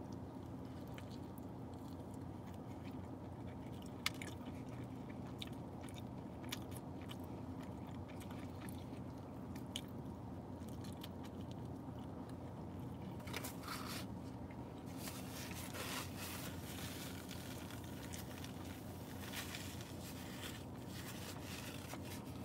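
Close-up mouth sounds of a person biting into and chewing a breakfast burrito: wet chewing with scattered small clicks, the sharpest about four seconds in, over a steady low hum.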